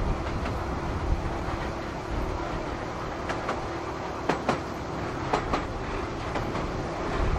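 Open-air rail cart running along old track: a steady rolling rumble, with the wheels clicking over rail joints in close pairs every second or so.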